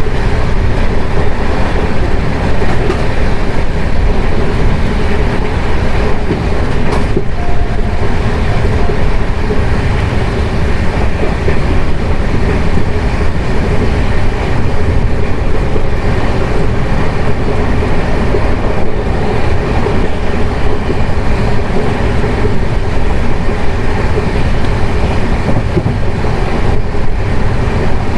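The 12079 Jan Shatabdi Express passenger train running along the track: a steady, loud rumble of wheels on rail that does not let up.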